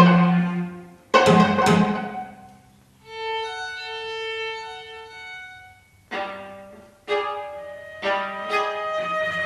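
Violin, viola and cello playing contemporary chamber music. A loud accented chord dies away, then comes a quiet held high note, then a series of short, sharp accented strokes.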